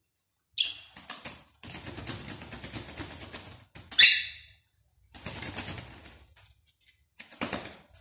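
African grey parrot flapping its wings inside a wire cage, in several separate bouts of rustling, rattling feathers, with one loud sharp burst about four seconds in.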